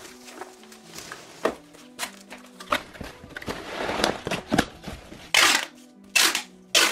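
Cardboard shipping box being handled and folded, with light rustles and taps, then clear packing tape pulled off the roll in three loud, quick rips near the end to seal it. Soft background music plays underneath.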